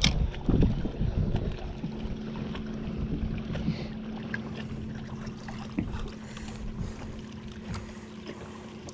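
Steady hum of a small electric motor aboard a bass boat, with a few low knocks and bumps in the first second or so.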